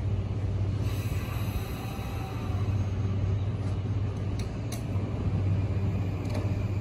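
E235-1000 series electric train standing at the platform with a steady low hum from its onboard equipment, then starting to pull away in the last couple of seconds. A few short clicks come in the middle.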